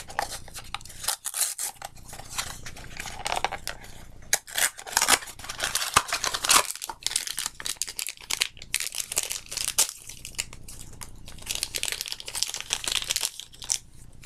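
Packaging being torn open and crinkled by hand as a small boxed collectible is unwrapped: irregular tearing, rustling and crackling.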